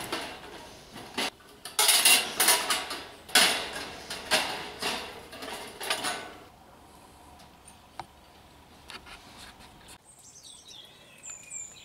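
Thin wire being pulled and twisted around a galvanised sheet-steel grid, rattling and scraping against the metal in a run of bursts for the first six seconds or so; then quieter, with a single click.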